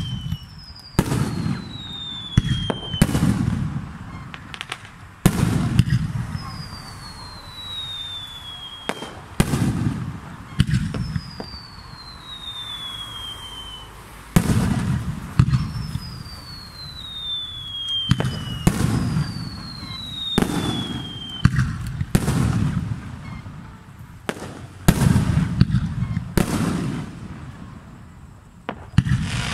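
Aerial firework shells bursting one after another: about a dozen sharp bangs, each with a rolling low rumble after it. Between the bangs come about five whistles that each slide down in pitch over a second or two.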